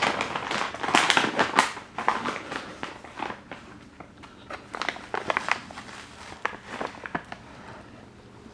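Irregular crinkling and crackling of a catnip bag being handled, busiest in the first two seconds and thinning out toward the end.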